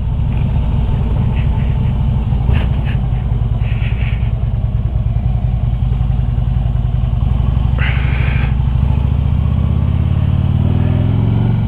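Harley-Davidson motorcycle's V-twin engine running under way. Its pitch climbs over the last few seconds as it accelerates, then drops sharply right at the end.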